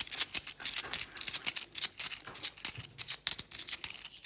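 UK 50p coins clinking and scraping against each other as they are thumbed one by one off a stack in the palm: a rapid, irregular run of small metallic clicks.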